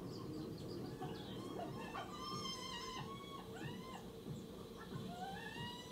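Soundtrack of a wildlife documentary on African lions playing from a television across the room: many short bird chirps and calls, with a longer mewing animal cry about two seconds in.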